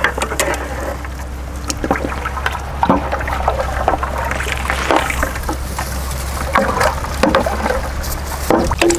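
Milkshake being stirred in a vessel: liquid sloshing and splashing with irregular knocks of the stirring utensil against the container, over a steady low hum.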